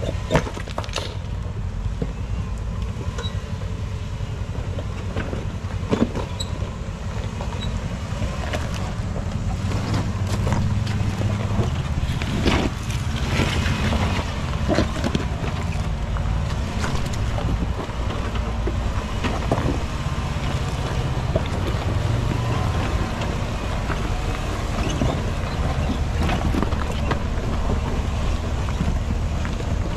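Jeep Wrangler JK on 35-inch tyres crawling up a steep rock climb: its V6 engine running at low revs under load, with tyres crunching over loose rock and sharp knocks from rocks now and then.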